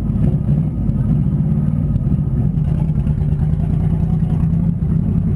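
Demolition derby car engine idling steadily, heard from inside the car.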